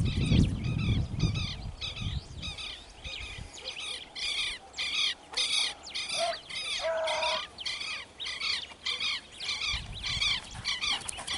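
A bird calling over and over in the open, sharp high calls at a steady pace of about two a second. A low rumble sounds over the calls at the start and again near the end.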